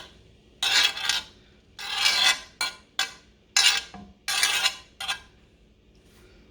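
A kitchen utensil scraping and clattering in about six short strokes as chopped onion and peppers are moved into a pan of warming oil, stopping about five seconds in.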